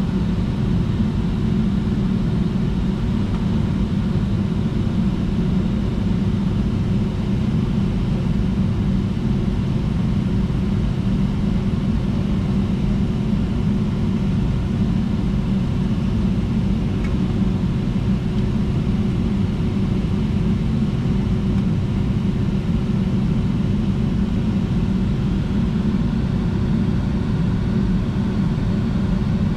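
Steady low rumble inside an airliner's cabin as it taxis on idling jet engines, with a faint steady hum over it.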